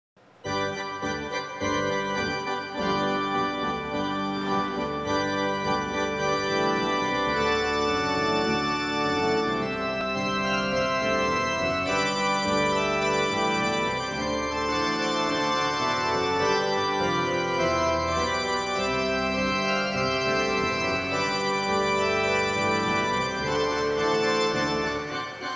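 Electronic organ playing the instrumental introduction to a Christmas carol: held chords with a melody on top. It comes in about half a second in.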